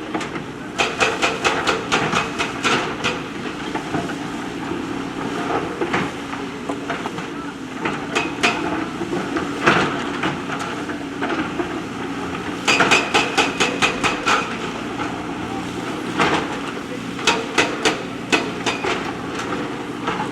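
JCB backhoe loader's diesel engine running steadily, with repeated bursts of sharp clanking and knocking as the machine works stones.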